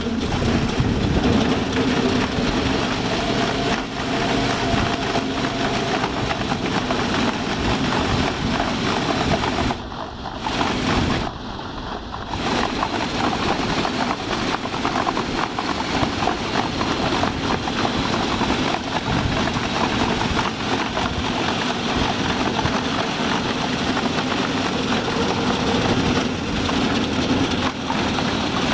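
Small go-kart engine running steadily, chain-driving a wooden paddle wheel that churns and splashes water; the wheel is geared too fast for the job. The sound drops briefly twice, about ten and twelve seconds in.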